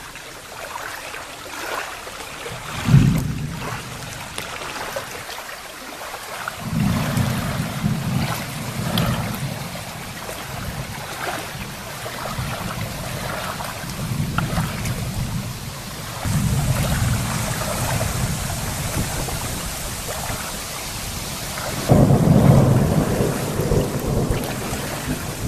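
Rolling thunder rumbling several times over a steady rain hiss. The loudest rumble starts abruptly near the end.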